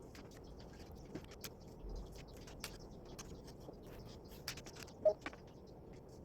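Typing on an EWEADN V20 Punk mechanical keyboard: soft, irregular key clicks, a few a second. A short pitched chirp about five seconds in is the loudest moment.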